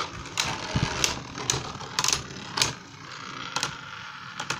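Two Beyblade Burst tops, Achilles and Fafnir, hand-spun in a plastic stadium and knocking together: a run of sharp plastic clacks, about two a second, with the hiss of the spinning tops in between.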